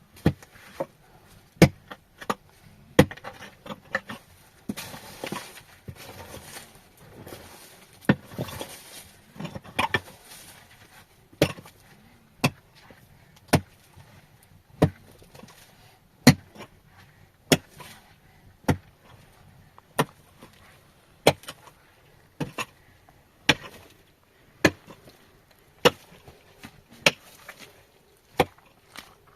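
Sharp knocks repeating steadily about every second and a quarter, a chopping rhythm of single strikes. Stretches of rustling noise come between strikes in the first third.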